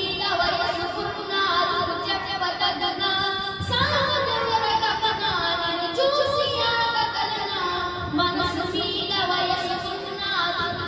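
A boy singing solo into a handheld microphone, in phrases of held, wavering notes that slide in pitch.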